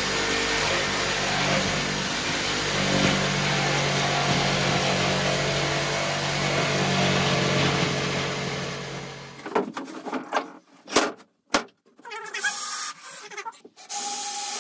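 A small handheld corded power tool runs steadily at high speed against a sheet of OSB, cutting into it, then stops about nine and a half seconds in. After it stops, a few scattered knocks and clicks follow.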